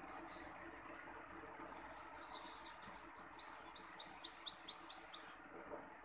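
Prothonotary warbler singing: a few softer twittering notes, then a loud run of about nine quick, rising, high notes lasting about two seconds.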